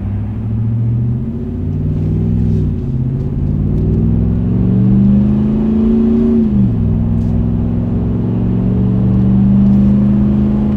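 2017 Ram 1500's 5.7-litre Hemi V8 with an MBRP high-flow replacement muffler, heard from inside the cab while accelerating hard through the gears. Cylinder deactivation (MDS) is locked out, so it runs on all eight cylinders. The engine note climbs, then drops with automatic upshifts about two and a half seconds in, about six and a half seconds in, and again near the end.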